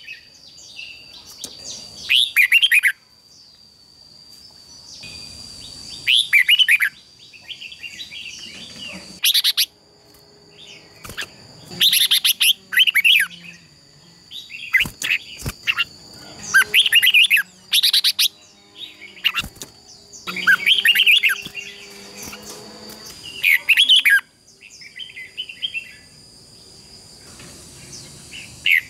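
Red-whiskered bulbuls in duel song, loud short bubbling phrases answering each other every second or two. A thin steady high whine runs underneath, with a few sharp clicks in the middle.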